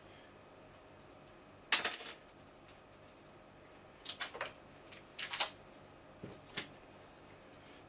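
Light metal clinks and clatter from a cable and its metal connector being handled: one sharp clatter about two seconds in, two shorter rattles around four and five seconds, and a couple of small clicks after.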